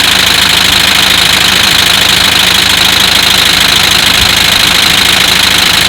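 Kia Sportage QL engine idling with a loud, steady rattle from between the engine and the dual-clutch transmission, the sign of a failing flywheel.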